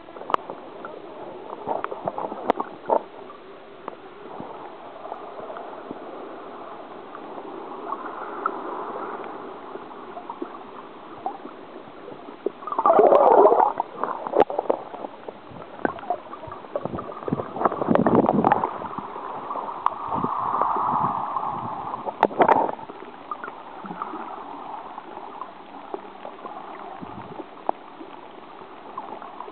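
Muffled gurgling and sloshing of sea water heard from a camera held underwater, with scattered clicks and a few louder rushing surges in the middle.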